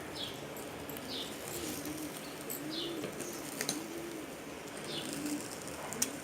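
Birds in the background: a low cooing repeated in a steady rhythm, with short high chirps about once a second. A few sharp clicks, the loudest near the end.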